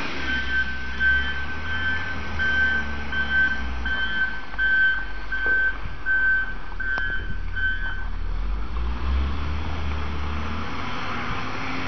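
Reversing alarm of the machine loading ballast into railway wagons, beeping about every three quarters of a second and stopping about eight seconds in, over a steady low rumble.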